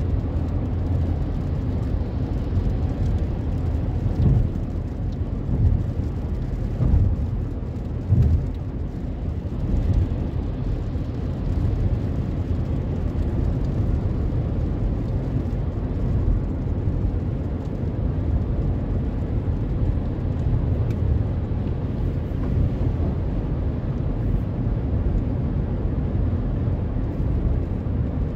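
Road noise inside a moving car on a wet highway: a steady low rumble of tyres and engine, with several short thumps in the first ten seconds.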